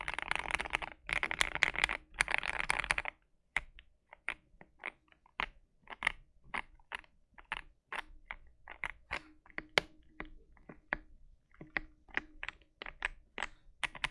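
KBD67 Lite mechanical keyboard with a modified gasket mount and JWK Black linear switches being typed on: a fast, dense run of keystrokes for about three seconds, then slower separate key presses at roughly two a second.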